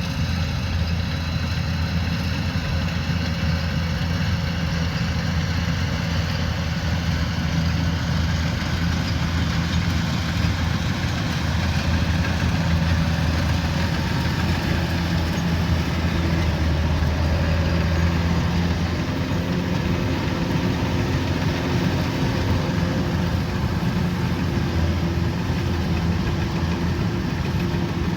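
Kubota DC105X combine harvester's diesel engine running steadily with a constant low drone, a little louder midway through.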